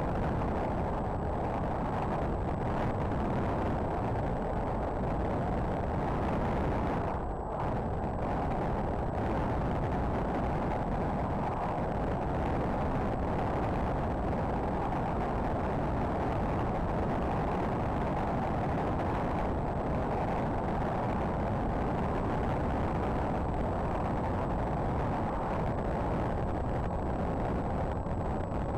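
Steady rush of wind and electric-motor noise picked up by a tiny camera mounted on a Z-51 Predator RC plane in flight, dipping briefly about seven seconds in.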